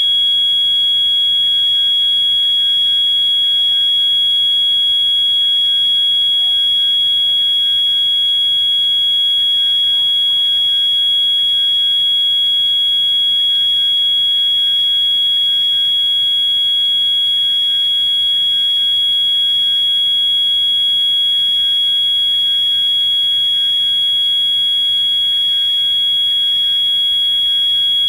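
Edwards 692-7A-HSR fire alarm sounding a continuous, piercing high-pitched tone with no break. Other fire alarm horns sound faintly behind it in an even repeating pattern.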